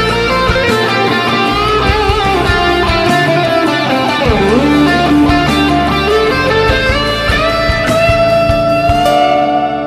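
Instrumental background music led by guitar, with a gliding melody line over held chords and a steady beat.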